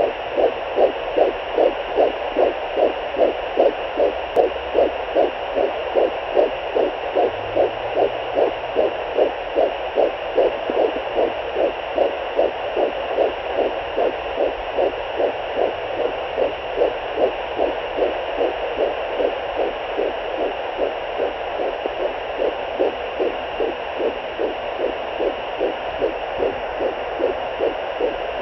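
Fetal heartbeat at 12 weeks picked up by a handheld fetal Doppler: a fast, even pulse over a steady hiss, the beats growing weaker in the second half.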